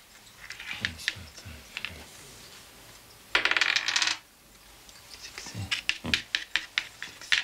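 A small die thrown and clattering on a wooden tabletop, with scattered sharp clicks and taps, a dense rattle of about a second near the middle, and a quick run of clicks near the end.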